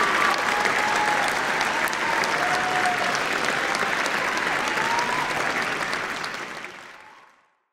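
Audience applauding after a choir performance, the clapping fading out near the end.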